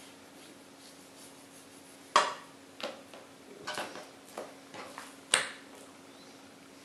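Kitchen knife knocking against a plastic cutting board as raw chicken breast is trimmed: a handful of sharp knocks, the loudest about two seconds in and another about five seconds in, over a faint steady hum.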